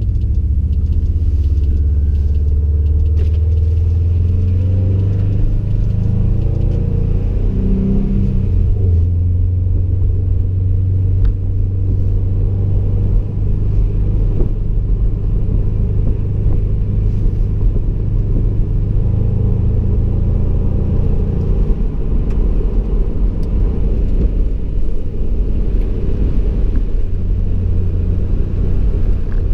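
Subaru STI's turbocharged flat-four, fitted with a turbo-back exhaust, rumbling deeply as heard from inside the cabin. Its pitch rises as the car accelerates for the first several seconds, then settles to a steady drone as it cruises.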